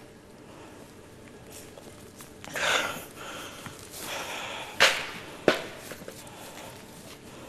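A large board being handled: a short rustling shuffle, then two sharp clacks about two-thirds of a second apart.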